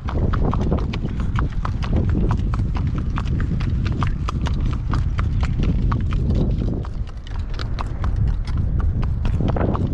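A horse's hooves clip-clopping on a paved road at a steady walk, over a constant low rumble.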